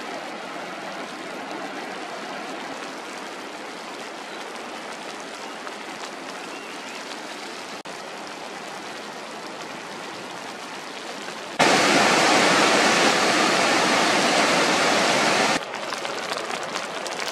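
Steady rushing of water in the open, stream and rain noise. About two-thirds of the way through, a much louder, fuller rush cuts in abruptly, lasts about four seconds, then drops back to a lighter, crackling water noise.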